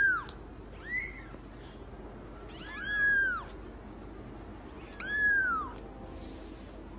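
Young kitten mewing four times: thin, high mews that each rise and fall in pitch, a short one about a second in and longer ones near the middle and later.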